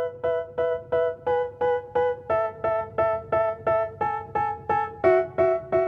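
Background music: a keyboard or electric piano playing short repeated chords, about three and a half a second, changing chord roughly every two seconds.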